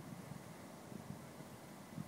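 Faint wind buffeting the microphone: an uneven low rumble that swells and fades.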